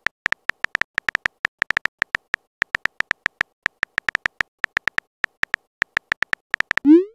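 Synthetic keyboard clicks from a texting-story app typing out a message, rapid and uneven, several a second. Near the end comes a short rising swoosh as the message is sent.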